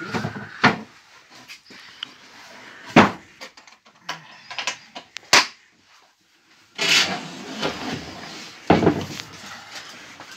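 Wooden beehive box being handled: a few sharp knocks as its metal-sheet-covered lid is shut and settled, the loudest about three seconds in. A few seconds later comes scraping and knocking as the box is shifted and turned on a wooden table.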